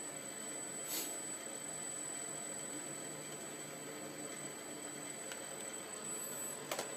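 Woodfast wood lathe running steadily with its spindle at about 660 RPM, a low motor hum. Two sharp clicks come near the end.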